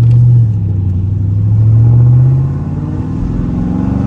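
Dodge Charger Scat Pack's 6.4-litre 392 Hemi V8 accelerating from low speed, heard from inside the cabin. The engine note climbs and drops suddenly twice, about half a second and two and a half seconds in, as the car shifts up.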